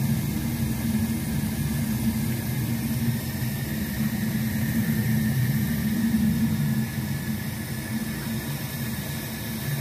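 A steady low mechanical hum with an even rushing noise over it.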